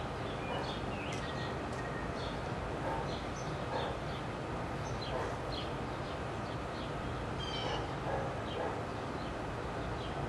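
Outdoor ambience: short, irregular bird chirps over a steady low background hum.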